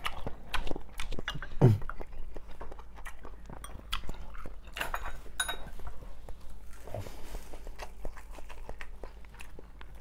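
Close-miked mukbang eating sounds: a man chewing mouthfuls of malatang and pork, with many small wet clicks and crackles. A low, heavier mouth sound comes about one and a half seconds in, and a smaller one near seven seconds.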